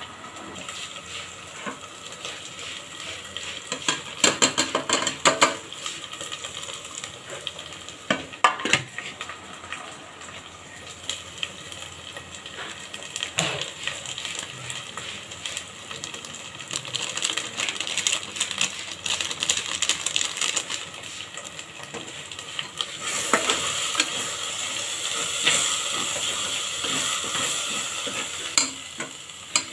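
Onion-and-spice masala frying in oil in a metal pot with a steady sizzle, while a metal spoon knocks and scrapes against the pot as dry spice powders are stirred in. The sizzle and stirring grow louder about two thirds of the way through.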